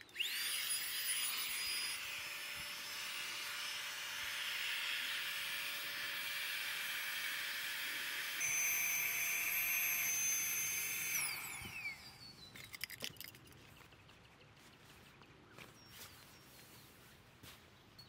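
Cordless power tool's electric motor spinning up and running with a steady whine for about eleven seconds, jumping a little higher in pitch about eight seconds in, then winding down; a few light clicks follow.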